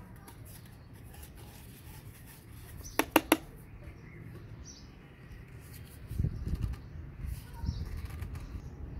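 PVC pipes and fittings being handled and pushed together: a quick run of four sharp clicks about three seconds in, then low rustling handling noise in the second half.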